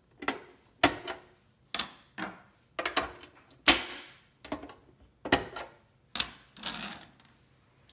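Hard plastic parts of a Genius Nicer Dicer vegetable chopper being handled: a series of sharp clicks and clacks, one or two a second, as the cutting grids are lifted out of the container and set down.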